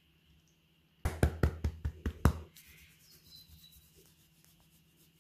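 Fingers scratching through a borzoi's long coat close to the microphone: a quick run of about seven loud rubbing strokes over a second and a half, then faint rustling.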